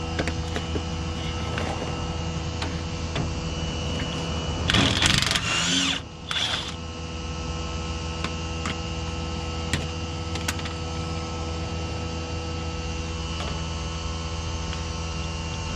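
A steady mechanical hum from running shop machinery, with two short, loud, hissing blasts about five and six and a half seconds in, as a tool is used during bushing work on a car's front suspension.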